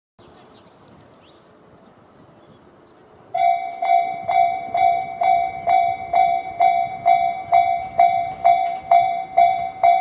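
Japanese level-crossing electronic warning bell, Tobu 'sound C' type sounding from both sides of the crossing, starting suddenly a few seconds in and repeating a bell-like ding about twice a second. It signals that the crossing has activated for an approaching train.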